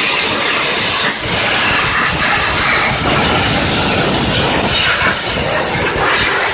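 High-pressure steam jet from a CW-D32 electric steam cleaner hissing steadily as it sprays a car engine, with slight surges in the hiss.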